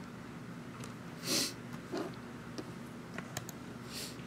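Quiet office room tone with a short sniff or breath through the nose about a second in, then a few light clicks at a desk computer's keyboard and mouse.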